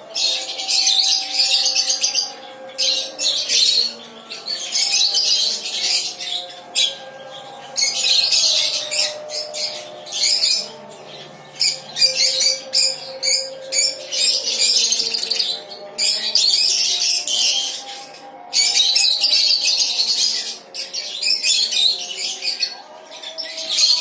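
A colony of caged lovebirds and budgerigars chattering and squawking, in shrill bursts of many calls at once that stop and start every second or two.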